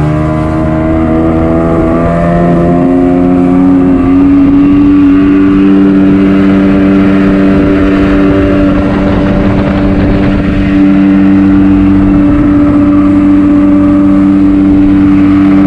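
Speedboat engine accelerating, its pitch rising over the first few seconds, then running steadily at speed and picking up a little again about eleven seconds in. Wind buffets the microphone throughout.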